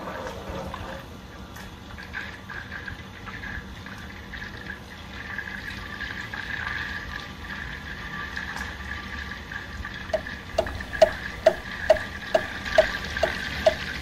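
Butter boiling and sizzling in a stainless steel saucepan on a gas burner as its water cooks off on the way to brown butter. From about ten seconds in, a regular run of short pitched pips, about two a second, comes in over it and is the loudest thing.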